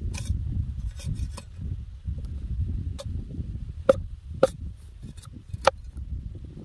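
Cleaver chopping into a sugarcane stalk and striking a wooden board: a series of sharp knocks, the loudest three in the second half, over a low rumble of wind on the microphone.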